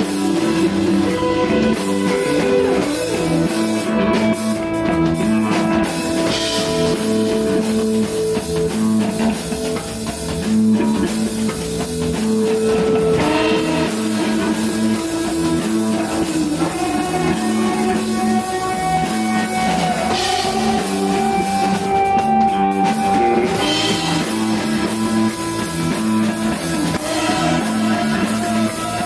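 Rock band playing live: electric guitar holding long notes over a repeating bass line and a drum kit.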